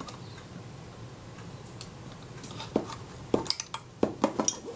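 Small metal clicks and taps from a Kodak Retina IIIc's front door being worked off its hinge and lifted away from the camera body, a quick run of them in the last two seconds.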